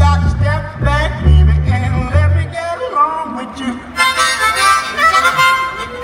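Live blues harmonica played into a microphone over a plucked upright bass. The harmonica bends its notes, then plays fuller held chords from about four seconds in. The bass notes stop about halfway through.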